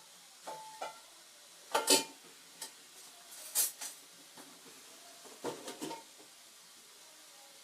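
Dishes and utensils clattering and clinking as they are handled and set down, in several short bursts, some with a brief ringing note; the loudest clatter is about two seconds in.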